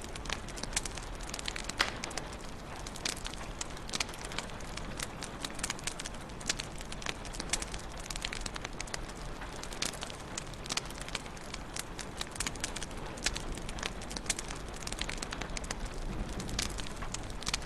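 Wood fire crackling in a fireplace: dense, irregular pops and snaps over a steady soft hiss.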